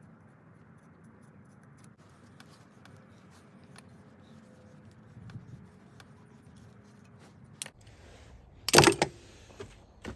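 Light metallic clicks and clinks of hand tools on metal parts, then a loud metal clank a little before the end.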